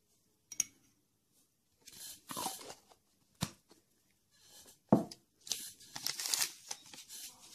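A metal spoon clinking against a small ceramic bowl a few times, the loudest clink about five seconds in, between stretches of scraping and rustling as ingredients are spooned out and handled.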